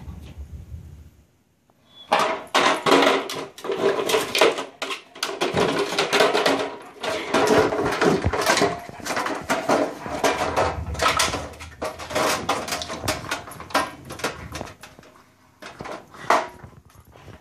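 German Shepherd chewing and knocking about a plastic toy dump truck: a dense run of plastic clattering and rattling knocks that starts about two seconds in and thins out near the end.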